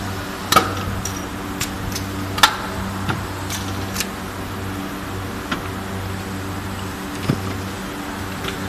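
Vertical injection molding machine cycling: a steady low mechanical hum with a string of sharp clicks and clunks as the mold opens, the rotary table turns and the mold closes again. The loudest clicks come about half a second and two and a half seconds in.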